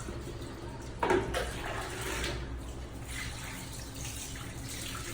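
Running water from a tap or shower hose, splashing as a puppy is washed, with a brief louder splash or sound about a second in.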